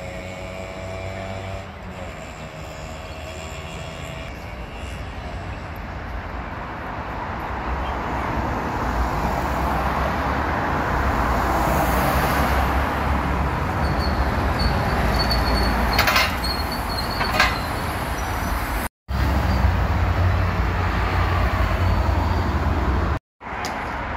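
Mercedes-Benz Citaro city bus passing close by: its diesel engine and tyre noise swell to a peak around the middle. Two short sharp sounds come a little after the peak. After a brief dropout the sound returns as a heavy low engine rumble from traffic, and it cuts out once more near the end.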